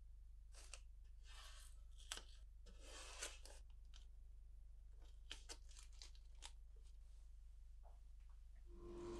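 Masking tape being torn and pressed down by hand onto a painted panel: faint scattered rustling and tearing sounds with a few light clicks, over a low steady hum.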